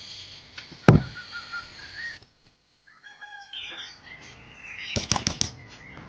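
Birds calling in short pitched notes, with a sharp knock about a second in and a quick run of clicks about five seconds in.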